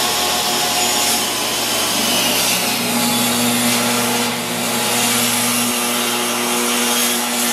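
Benchtop table saw running, its blade cutting through a wooden board as the board is pushed through: a loud, steady saw noise.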